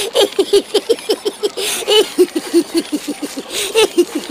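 High-pitched cartoon voices of ZooZoo characters chattering and giggling in gibberish, a fast run of short syllables.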